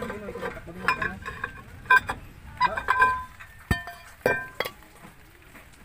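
Toyota Innova rear brake drum being worked off the hub over the brake shoes, giving a series of metallic knocks and clinks, several with a short ring.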